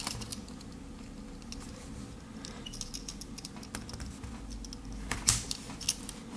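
Scattered light clicks and taps of a Victorinox Tinker Swiss Army knife being handled with its tools opened out, with one louder click about five seconds in.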